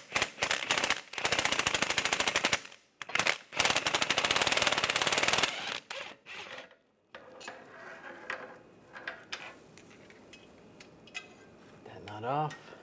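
Hand ratchet with a 15 mm swivel socket spun fast to run a loosened catalytic-converter nut off its stud, giving rapid continuous pawl clicking in two runs of about two seconds each. After that come only scattered light clicks and knocks.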